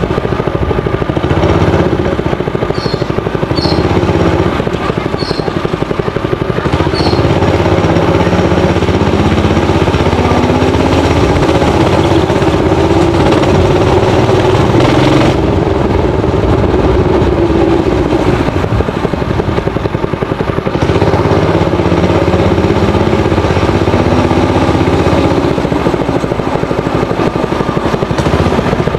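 Single-cylinder four-stroke GX160-type engine on a minibike, running hard, its pitch rising and falling repeatedly as the throttle opens and closes.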